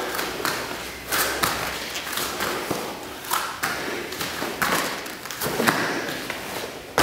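Irregular series of thuds and slaps as bare feet and hands land on foam martial-arts floor mats during fast squats, burpee jumps and rolls.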